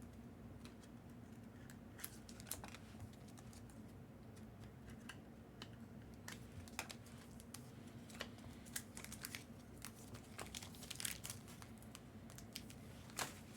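Trading cards and rigid plastic top loaders being handled: faint crinkling with scattered light clicks, busier toward the end.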